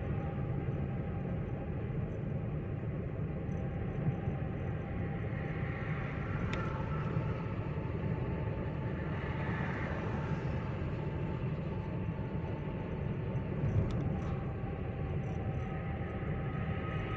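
Chevrolet Spin 1.2 cruising at highway speed: a steady low rumble of engine and road noise with tyre hiss, and a couple of brief clicks.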